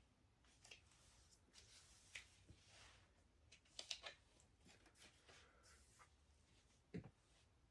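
Near silence, with a few faint rustles and small clicks of book pages being handled and turned, the clearest one about seven seconds in.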